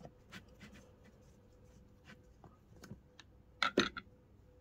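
A screwdriver backing a small screw out of the plastic pump housing of a Jabsco marine toilet: scattered light clicks and scrapes, with a few louder clicks about three and a half seconds in. A faint steady hum runs underneath.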